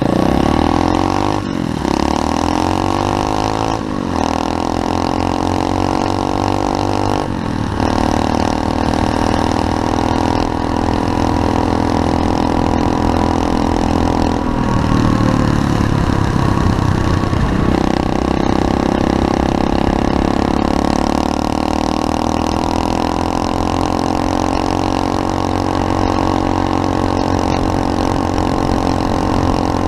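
SSR 125cc pit bike's single-cylinder four-stroke engine running hard under way, its pitch climbing after a gear change about 1.5, 4 and 7.5 seconds in. The engine note goes rough and unsteady briefly about halfway through, then holds at high revs.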